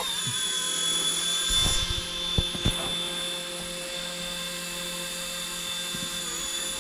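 Battery-powered mini RC helicopter, the Cleetus McFarland mini Consuela, whining steadily from its electric motor and spinning rotors as it takes off and hovers. A couple of short light knocks come about two and a half seconds in.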